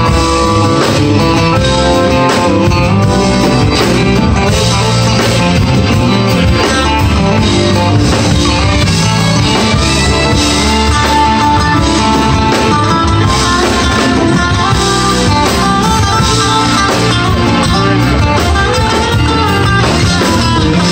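Live band playing, led by electric guitar over bass guitar and drums.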